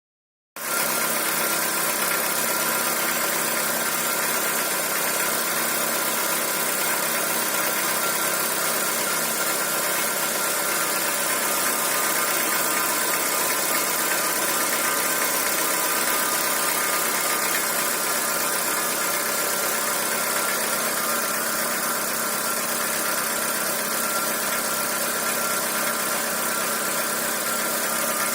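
Chevrolet Corsa engine idling steadily, starting about half a second in, with an abnormal engine noise whose cause the owner does not know.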